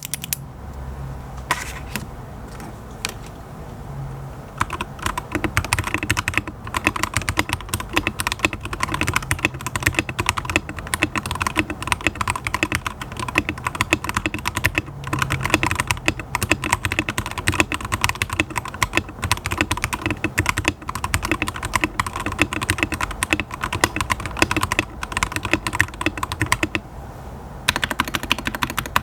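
Typing on a Mono80 TKL mechanical keyboard fitted with yellow switches: a few scattered keystrokes at first, then from about four seconds in a steady run of fast typing, with a short pause near the end before it resumes.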